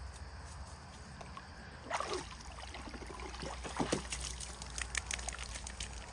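Water sloshing and splashing in a plastic washtub as a large dog heaves itself up and climbs out, starting about two seconds in, followed by a run of short drips and spatters as water runs off its wet coat.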